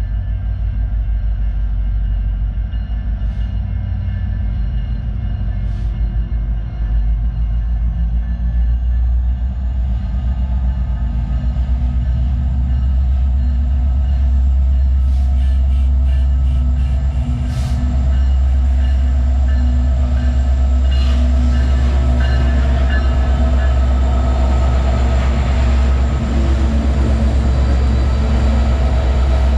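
CN diesel freight locomotives passing up close: a deep steady engine rumble with a high steady whine above it, and sharp clacks of steel wheels on the rails. The sound grows louder about halfway through.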